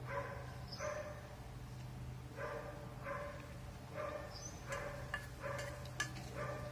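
A dog barking over and over, roughly once a second, with a few sharp clinks of a metal spoon against a stainless steel bowl in the second half.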